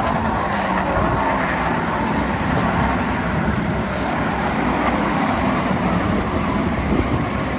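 Several Ford Crown Victoria race cars' V8 engines running at speed around a short oval track, heard as a steady, dense engine noise.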